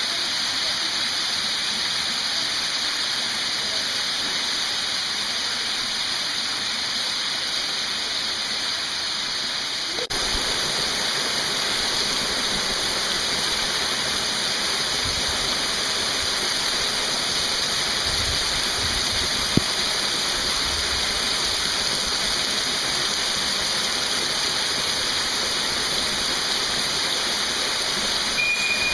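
Waterfall in a narrow canyon: a steady, even rush of falling water.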